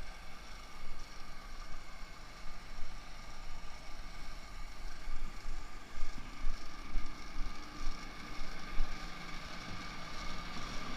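Engine running steadily, a constant whine over an uneven low rumble.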